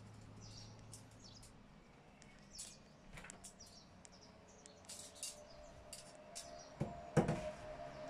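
Steel saw chain clinking and rattling against its guide bar as it is handled and fitted around the bar, in many small irregular metal ticks, with two knocks near the end as the bar is set onto the chainsaw's body.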